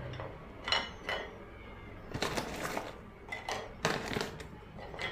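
Crisp fried papdi wafers being laid one by one onto a plate, giving light clicks and scrapes of crisp on crisp and plate in several short clusters.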